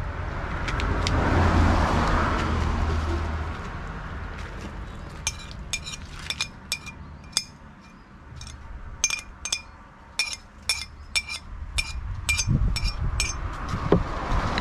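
A bottle is tipped into a glass measuring jug for the first few seconds. Then a metal spoon clinks again and again against the glass jug as a marinade is stirred, about three ringing clinks a second, with a short pause in the middle.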